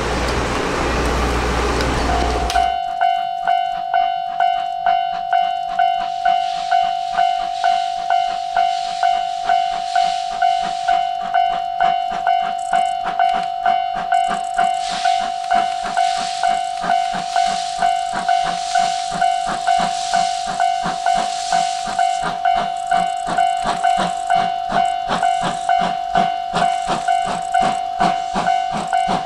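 About two seconds in, after a stretch of broad traffic-like noise, a Japanese railway level-crossing alarm starts ringing. It sounds a steady high tone in even, quickly decaying strikes, about one and a half a second, as a steam train passes with a hiss of steam underneath.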